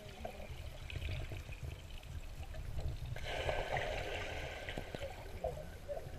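Pool water heard underwater, a low steady rumble and sloshing; about three seconds in, a child plunges into the pool and a rush of splash and bubbles lasts about a second and a half.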